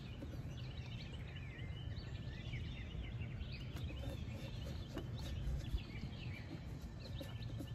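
Outdoor ambience: small birds chirping, many short high chirps one after another, over a low steady background rumble.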